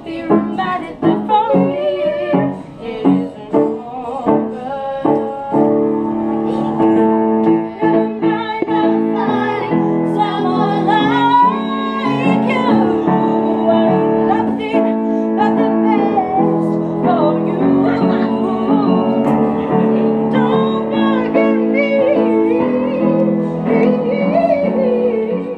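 Music: piano chords, joined about six seconds in by a singing voice over held chords.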